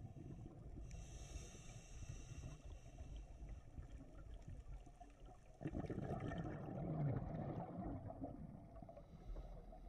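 Scuba diver's regulator breathing underwater over a steady low rumble: a hissing inhale about a second in, then a louder gush of bubbling exhaust from about halfway through, lasting a couple of seconds.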